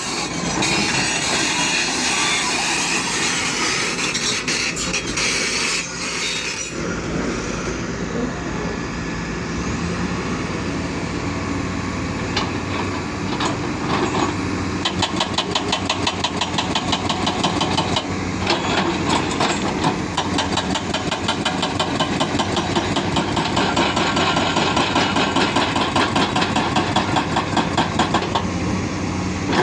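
An excavator's diesel engine runs with a steady hum. From about halfway in, its tracks set up a fast, regular clanking of several strokes a second as the machine moves.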